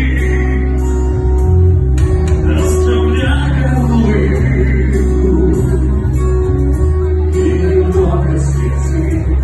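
Music: a song with guitar and a singing voice over a steady bass.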